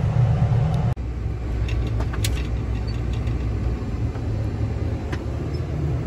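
John Deere tractor's diesel engine running steadily, heard from inside the cab, with a few light clicks over it. The engine sound breaks off and changes about a second in.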